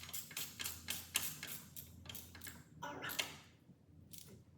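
Hand ratchet clicking in quick strokes, a rapid run of light metallic ticks for the first two and a half seconds, then a brief scrape and quiet.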